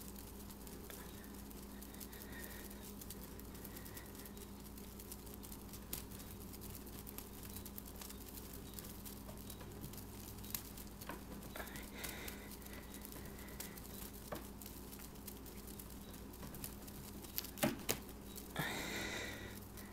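Faint taps, clicks and rustles of a cat swatting at a feather wand toy, over a steady low hum. Near the end come two sharp clicks, then a short higher-pitched sound lasting about a second.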